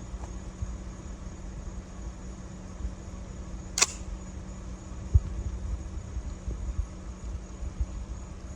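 A single sharp crack about four seconds in, with a low thump about a second later, over a steady low rumble and faint hum.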